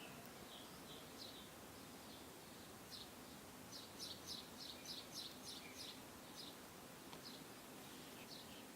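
Faint outdoor background hiss with a small bird's high, short chirps, including a quick run of about eight chirps a few seconds in.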